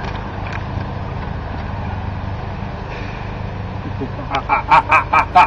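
Steady low outdoor rumble picked up by the camera's microphone. About four seconds in, a person starts laughing in short, evenly spaced bursts, about four a second.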